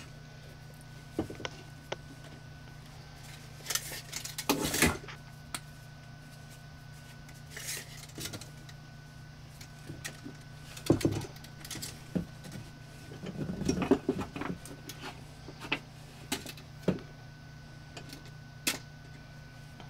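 Handling noise of a copper pipe, a tape measure and a marker pen on a table: scattered clicks, taps and short rattles, a few of them louder, over a steady low hum.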